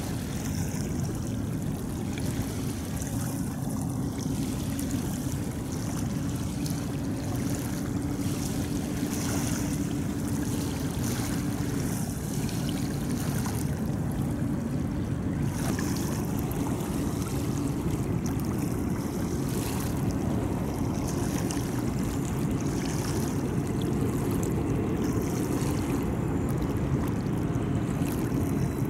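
Diesel locomotives of a BNSF freight train running at a distance, a steady low engine rumble with a hum held steady for the first dozen seconds before it broadens out.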